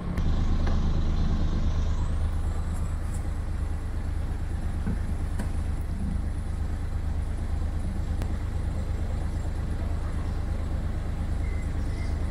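Sailboat's engine running steadily under way, a low even hum.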